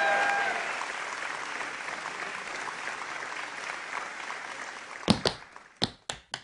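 Audience applause dying away over several seconds. About five seconds in, a run of sharp, separate taps begins, a few a second.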